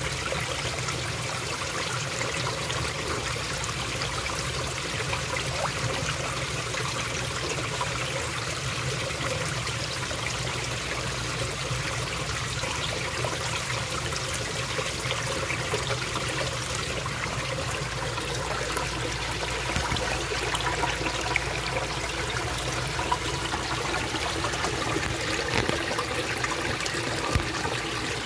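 A small stream of water trickling and splashing down a narrow rock crevice into a shallow pool, steady throughout, with a few sharper splashes in the second half.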